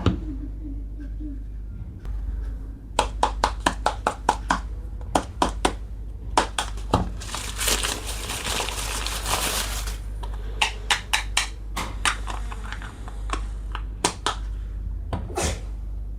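Small plastic toy kitchen pieces clicking and tapping against each other in quick runs, with plastic packaging crinkling for a couple of seconds in the middle.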